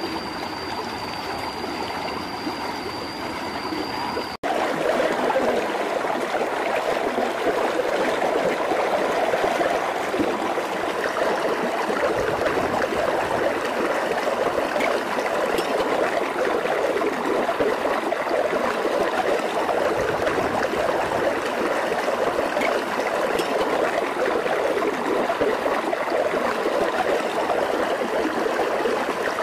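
Shallow rocky stream running steadily over stones, a constant rush of water. A thin steady high-pitched tone sounds over it for the first four seconds, then breaks off in a brief dropout, after which the water is louder.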